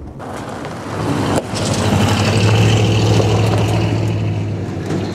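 GM 3/4-ton pickup truck driving on a gravel dirt road in four-wheel drive. Its engine drone and tyre noise swell to their loudest about halfway through, then fade as it pulls away.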